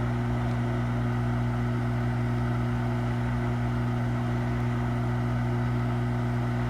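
Hot air rework station blowing at maximum airflow: a steady motor hum under an even rush of air, held unchanged while it heats an HDMI port's solder joints to desolder it.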